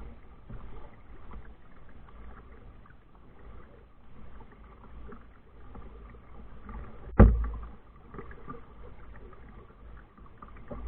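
A single hard thump about seven seconds in, over faint steady background noise.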